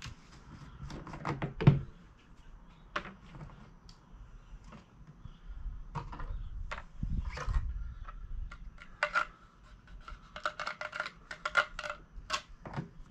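Scattered clicks, knocks and rattles of a plastic gas can's cap and pour spout being handled, before the lawn mower's tank is filled. A sharp knock comes about two seconds in, and quick rattly clicks come near the end.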